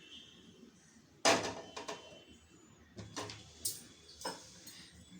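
A cooking pan being handled and set down: a sharp knock about a second in, then several lighter knocks and clicks.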